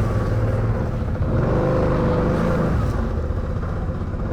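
ATV engine running steadily under the rider, with a slight change in revs around the middle.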